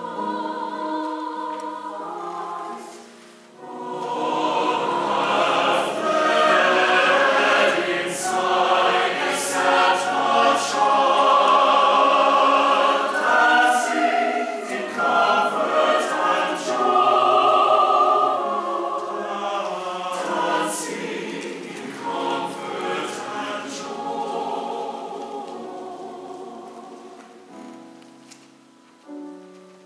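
Mixed choir singing in parts, dipping briefly a few seconds in, then swelling to a loud passage through the middle before fading toward the end.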